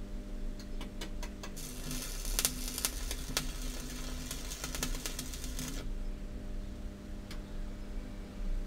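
MIG welder arc crackling and spitting for about four seconds while welding a wrought-iron scroll to a flat bar, after a few short crackles about a second in. A steady low hum runs underneath.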